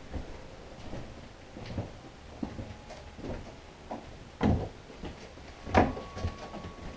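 Footsteps and scattered knocks of people walking through a corridor towards a staircase, with two louder thumps about four and a half and six seconds in.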